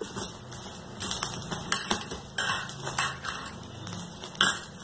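Fingers rubbing and mixing dry gram flour (besan) with spices and a little oil in a stainless steel bowl: irregular rustling and scraping against the steel, with a louder scrape near the end.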